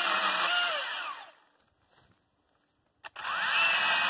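Motorized pole pruner's motor whining up to speed and running, winding down about a second in. After a short silence it spins up again near the end.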